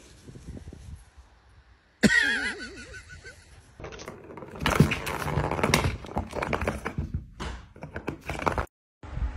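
Plastic ball-track cat toy rattling and clattering as cats bat at the ball in its track, preceded by a brief wavering, warbling tone about two seconds in.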